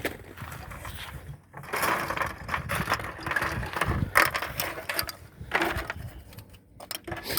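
Spent plastic shotgun hulls clattering and rattling as they are picked up and handled, with irregular clicks and rustling.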